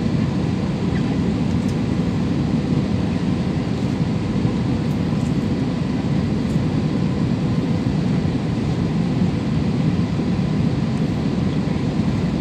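Steady jet airliner cabin noise, the engines and rushing airflow heard from inside the passenger cabin, even and unbroken throughout.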